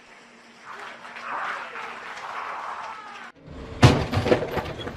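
A rushing noise that cuts off abruptly, then a loud crash followed by a few clattering hits, like something breaking apart.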